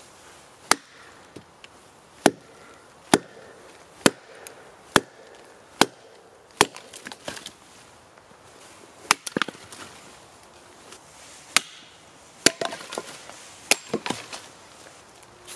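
Axe splitting a round of firewood set on a log: about a dozen sharp chops, roughly one a second at first, then a pause and a few more spaced out. Some strikes are followed by smaller knocks as the wood splits and the pieces fall.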